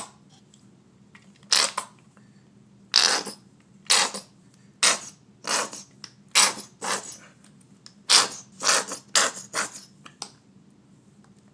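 Squeeze bottle of mustard being squeezed over apple slices, about a dozen short sputtering squirts at uneven intervals.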